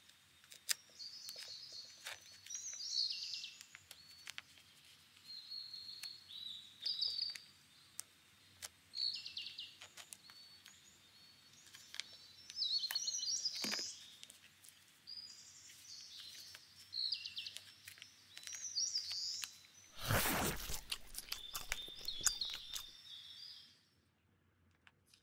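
Tape-covered paper crinkling and clicking faintly under the fingers as it is pressed and smoothed, with birds chirping in the background. A louder crinkling rustle comes about 20 seconds in.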